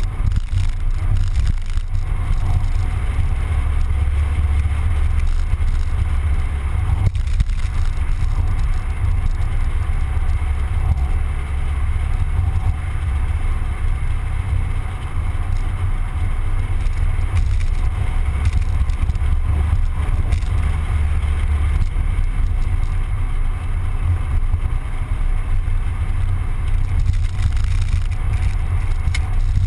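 Mazda Miata driving at a steady pace: a constant low rumble of the car under way, with no sudden events.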